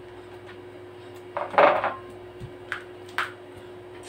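Cutlery clattering against plates at a dinner table: one louder clatter about a second and a half in, then two short clinks, over a steady low hum.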